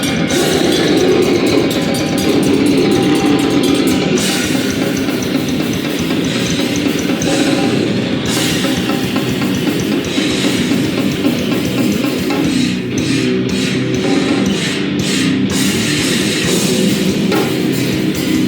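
Live heavy rock band playing loudly: guitar and drum kit in a dense, continuous wall of sound.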